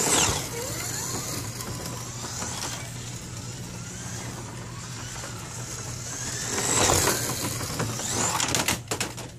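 Slot cars whizzing past on the track, their small electric motors whining up and down in pitch with a rush of wheels on the lane: one pass right at the start and another around seven seconds in. A quick run of clicks and clattering follows near the end, over a steady low hum.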